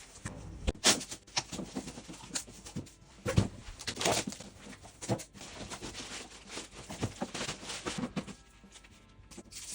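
Irregular knocks, taps and rustling of objects being handled, with the loudest knocks about one and three and a half seconds in.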